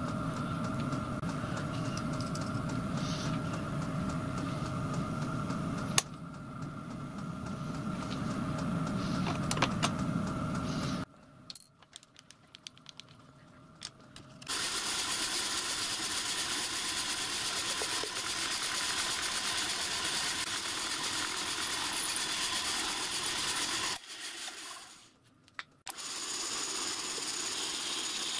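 Drill press running steadily while a small bit bores through a small metal ball held in a machine vise; the ball was annealed so that it can be drilled. The sound drops away twice for a few seconds, with a few light clicks in the first gap.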